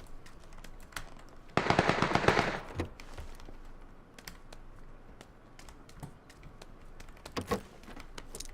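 A rapid clattering run of clicks lasting about a second, followed by scattered faint clicks and taps and a sharper knock near the end.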